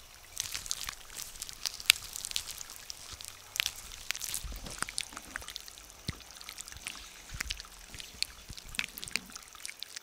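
Water trickling and dripping, with many small irregular drips and splashes over a soft running-water background.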